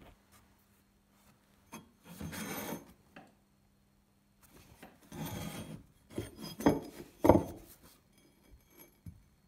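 Steel hatchet head being handled and slid about on a wooden workbench: a few short scraping rubs of metal on wood, then two sharp knocks about two-thirds of the way through as it is set down.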